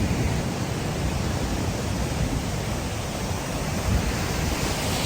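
Ocean surf rushing on the beach, with wind buffeting the microphone: a steady hiss over a low, fluttering rumble.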